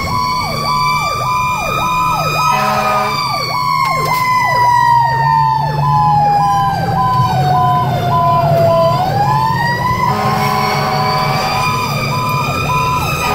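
Fire engine sirens heard from inside the cab of a 2010 Pierce Arrow XT responding to a call. An electronic siren sweeps quickly, about one and a half cycles a second, over a mechanical siren that winds up, slowly coasts down in pitch, and winds up again about nine seconds in. The truck's engine runs low underneath.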